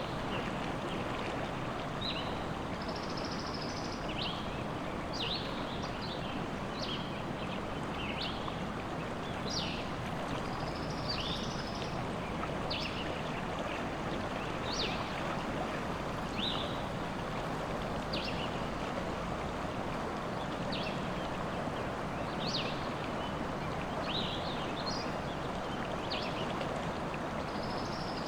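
River water flowing and rushing steadily, with small birds singing over it in short, sharp chirps and brief whistles, one or two a second.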